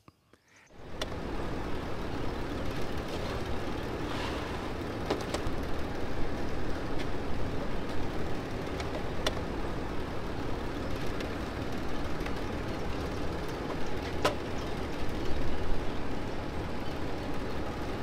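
Steady outdoor background noise, with a few light clicks as the plastic parts and sample cup of a near-infrared feed analyser are handled and set down.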